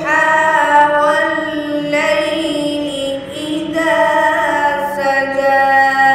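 A boy's voice reciting the Quran in melodic tarteel style, holding long, drawn-out notes in about three phrases with short breaths between them.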